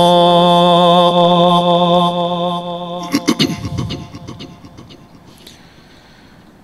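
Male Quran reciter holding the drawn-out final vowel of 'al-Aqsa' on one steady pitch for about three seconds. He ends it with a brief wavering turn, and the voice then fades away to quiet room tone.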